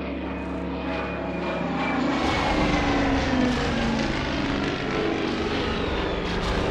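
Propeller aircraft piston engines droning as a formation flies over, growing louder about two seconds in, with the pitch sliding down as the planes pass.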